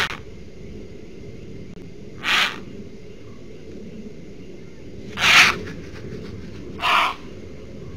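An animal's short, harsh, rasping call, given four times about every one and a half to three seconds over a steady low hiss.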